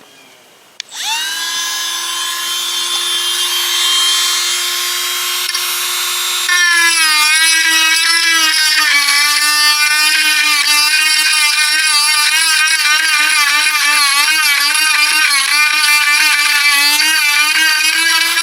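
Cordless rotary tool switched on about a second in, spinning up to a steady high whine. From about six seconds in it gets louder, its pitch drops a little and wavers as the bit carves into oak, the motor slowing under load.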